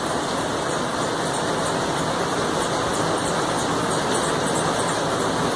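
Steady, even rushing background noise, with faint light ticks of a pen marking paper.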